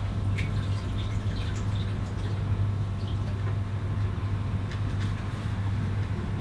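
A steady low machine hum with a few faint light ticks over it.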